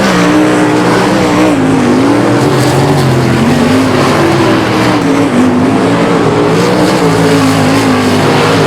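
410 sprint cars' V8 engines running hard at speed, several cars at once, their pitch rising and falling as they ease off and get back on the throttle.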